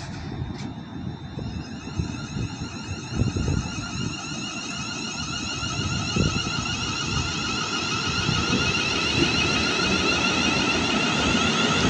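Electric train approaching, its whine of several high steady tones growing steadily louder. Wind buffets the microphone.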